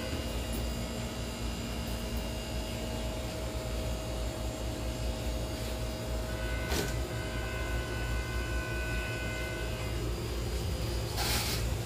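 Steady low hum of aquarium air pumps and filters, with faint high steady tones over it. A short click comes about seven seconds in, and a brief hiss near the end.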